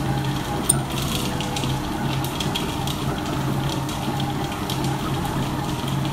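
Silvercrest Monsieur Cuisine Connect food processor running, its motor mixing bread dough in the bowl, with a low hum that swells and dips in a repeating rhythm and small scattered clicks.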